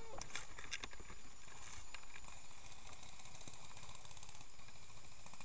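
Footsteps and brush rustling through ferns and woodland undergrowth as a player moves quickly, with a cluster of sharp snaps and clicks in the first two seconds.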